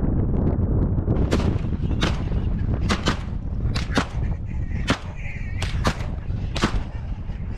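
12-gauge Benelli M2 shotgun fired repeatedly from a moving vehicle: about nine sharp reports, several in quick pairs, over a steady rumble of vehicle and wind noise.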